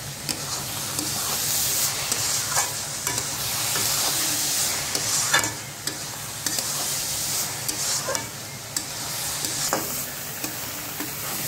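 Grated bottle gourd halwa frying in ghee with a steady sizzle while a steel spatula stirs it around the pan, scraping against the metal a few times. This is the roasting stage, the halwa nearly dry in the ghee.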